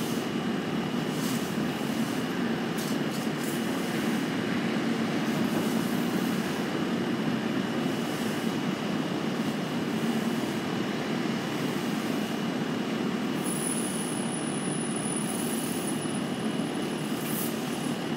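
Steady machine hum with a thin, high, constant whine, unchanging throughout, with a few faint high rustles now and then.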